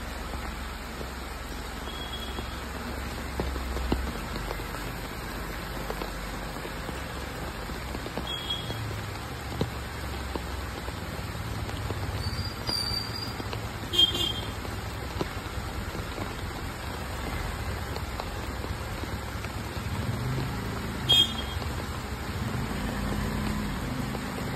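Steady rain falling on the ground and nearby surfaces, with a car engine running at low speed as the car creeps and turns. The engine rises a little near the end. A few sharp taps stand out over the rain.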